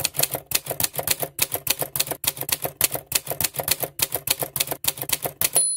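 Typewriter sound effect: a steady run of key clacks, about four or five a second, ending in a short bell ding.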